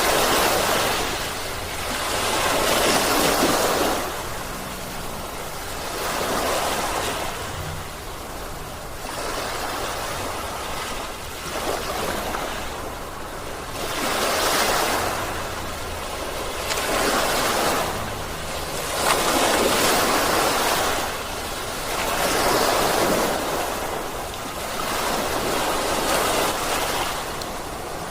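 Sea waves breaking and washing on the shore, a rushing noise that swells and fades every few seconds.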